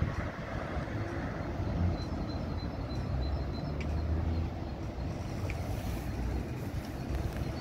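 Articulated city bus pulling away and passing through the junction: a steady low rumble of traffic.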